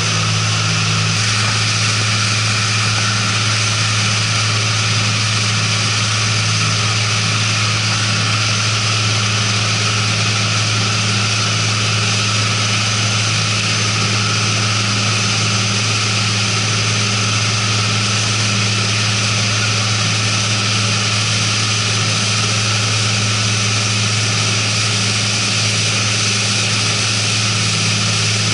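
Boat engines running steadily at speed with a constant low drone, under a loud steady rush of wind and spray as rigid-hull inflatable rescue boats run side by side.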